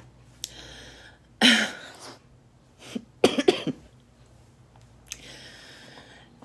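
A woman coughing a few times and clearing her throat, with audible breaths drawn in between.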